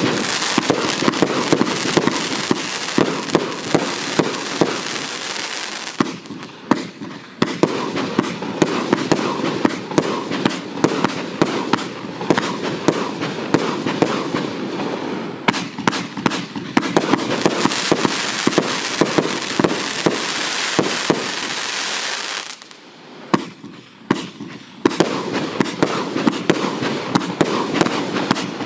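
Kaiser 1.5-inch firework battery (cake) firing: a rapid, continuous string of bangs and crackling. There are two short lulls, one about six seconds in and another about twenty-three seconds in.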